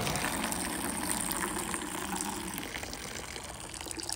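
A stream of urine pouring into a white plastic bucket already partly full of urine, splashing and frothing in the liquid. It is steady and gets slightly quieter toward the end.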